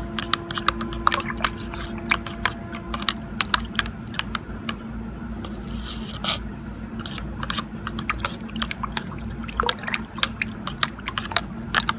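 A stirring rod knocking and scraping against the sides of a plastic bucket as it swirls liquid engine coolant (ethylene glycol and demineralised water with colour). The irregular clicks come several a second, thinning out for a few seconds in the middle.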